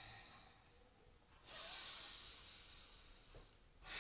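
A woman's long, audible breaths during slow yoga stretching on all fours. One breath starts abruptly about a second and a half in and fades over about two seconds, and another begins near the end.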